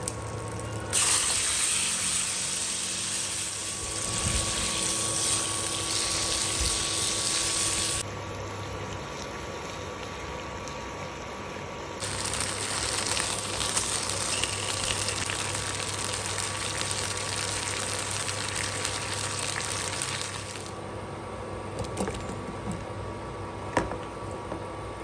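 Food sizzling in a hot frying pan, a steady hiss that starts suddenly about a second in, breaks off at about eight seconds, and returns from about twelve to twenty-one seconds. A few light clicks follow near the end.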